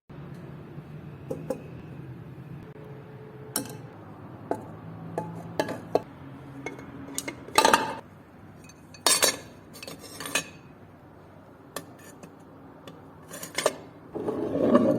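Metal parts of an old hand-cranked grinder clinking and knocking as they are handled. There is a series of sharp clinks, with louder clatters about halfway through and a burst of rattling near the end, over a steady low hum.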